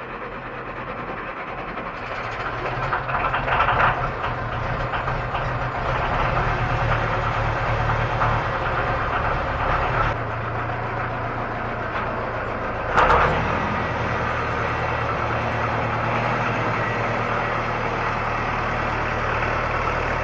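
Massey Ferguson tractor's diesel engine, preheated by its glow plug, cranked by the starter and catching a few seconds in, then idling steadily. A brief loud clack about 13 seconds in.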